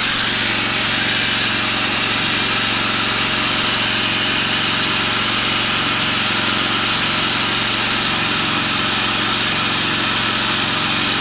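Predator 3500-watt inverter generator running steadily under a light load, with an electric angle grinder plugged into it spinning freely and drawing about 3.5 amps (roughly 420 watts). The engine hum and the grinder's high whirring hiss hold steady.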